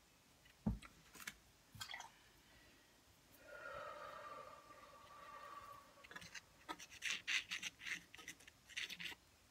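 Paintbrush scratching and scrubbing acrylic paint onto a rough, textured canvas in short strokes, densest in the last three seconds. A dull thump comes under a second in, and a faint wavering tone lasts about two and a half seconds in the middle.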